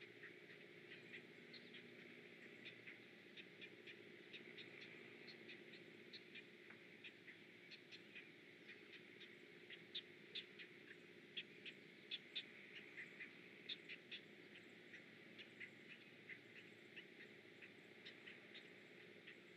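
Faint bird calls: many short, high chips and clicks in an irregular patter, busiest about halfway through, over a faint steady low hum.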